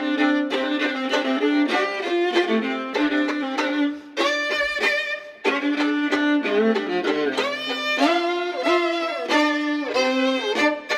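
Background music led by a fiddle playing a lively tune of quick notes.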